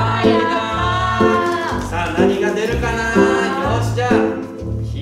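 Background music: an upbeat tune with a bright melody over a steady, bouncing bass line.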